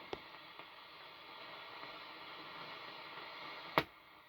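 Cossor CR4212A valve radio hissing with medium-wave static while it is tuned between stations. There is a faint click just after the start and a sharp click near the end.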